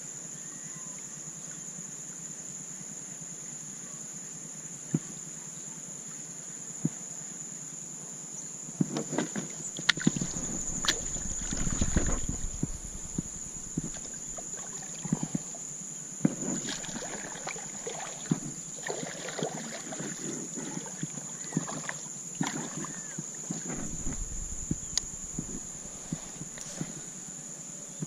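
Kayak paddling: irregular paddle strokes splashing and dripping in the water, with a few sharp knocks of the paddle against the plastic hull. The strokes start about a third of the way in and ease off near the end.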